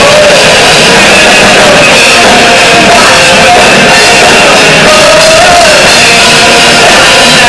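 Live heavy rock band playing: distorted electric guitars over drums, with a voice singing at the microphone. Steady and very loud, with no break.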